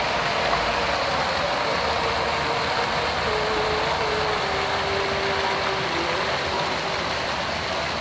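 Many thin arching fountain jets splashing into a pool: a steady rushing hiss of falling water.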